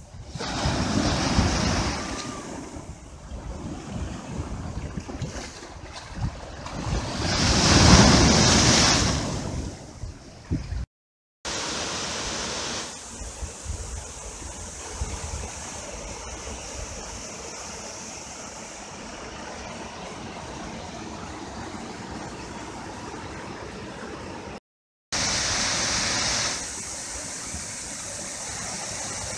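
Sea waves breaking over rocks at the shoreline, two big surges swelling and washing back. After a short gap, the steady rush of a small waterfall splashing into a pool.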